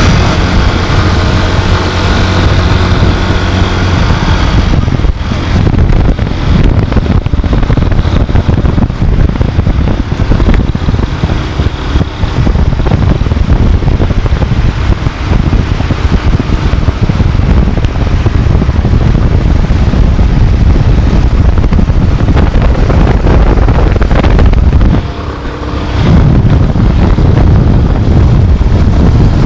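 Chevrolet Corsa Wind 1.0 running, with a steady engine hum for the first few seconds. After about five seconds, loud rumbling wind noise on the microphone covers it, easing briefly near the end.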